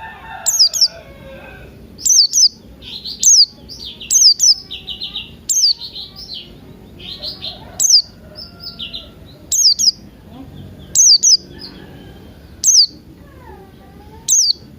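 Birdsong from a pleci buxtoni white-eye and cucak rante lure recording: short, sharp, high-pitched chirps that sweep downward, coming in clusters every second or two over softer background twittering.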